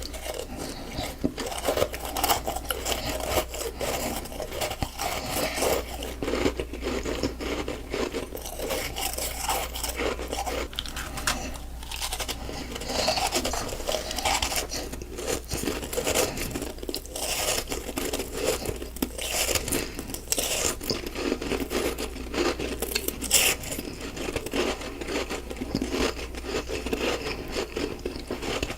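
Close-up biting and chewing of crunchy snowballs of packed ice, a continuous run of crisp crunches and gritty grinding.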